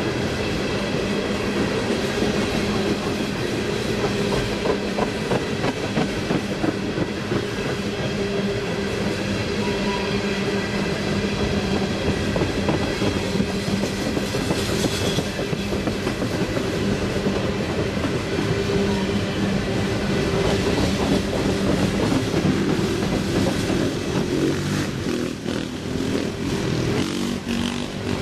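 Norfolk Southern freight train of empty hopper cars climbing the grade: a steady drone with wheels clacking and rattling over the rails.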